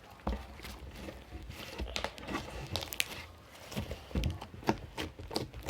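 Slime being squeezed and worked by hand, giving an irregular run of small sticky clicks and crackles.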